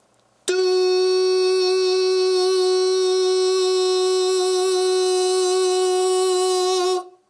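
A man's voice holding one steady sung note, the F sharp above middle C, for about six and a half seconds, starting half a second in and stopping just before the end. It is a single held note of a chromatic scale being recorded as a vocal sample, sung high in his range.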